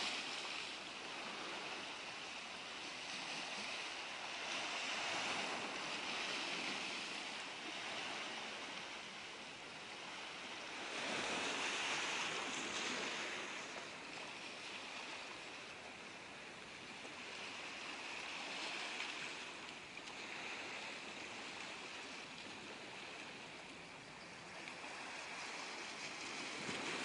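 Small sea waves lapping and washing over a pebble shore: a steady hiss that swells and fades every few seconds, loudest at the very start and again about eleven to thirteen seconds in.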